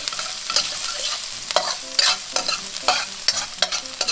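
Ginger and garlic sizzling as they are sautéed in a stainless steel wok, stirred with a metal spoon that scrapes and clinks against the pan again and again.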